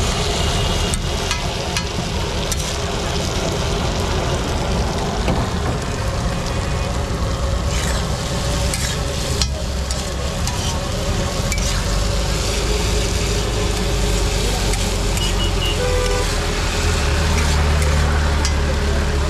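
Beef tripe sizzling in oil on a large flat iron griddle, with a metal spatula repeatedly scraping and clacking against the iron as it is stirred.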